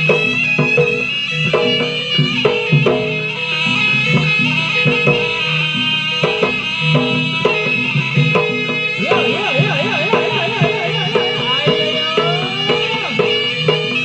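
Jaranan music: a shrill reed wind instrument, the slompret, plays a sustained melody over a steady rhythm of kendang drums and struck gong-chimes. From about nine seconds in, the melody breaks into quick rising ornaments.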